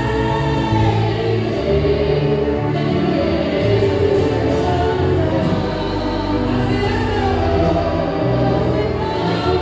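A choir singing a church song together, over instrumental accompaniment with held bass notes that change every second or so.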